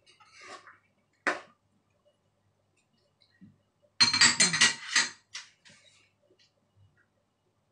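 Metal cooking utensils on cookware: one sharp knock of a spoon against the metal pan, then about four seconds in a quick run of ringing clinks as a ladle is set down on a small ceramic dish, with a few lighter taps after.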